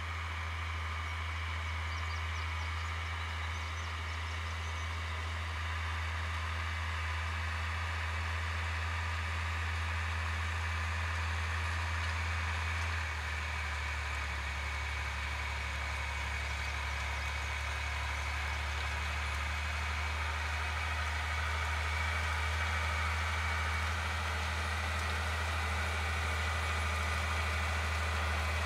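Farm tractor engine running steadily in the field, a constant low drone with a slight change in its note about halfway through.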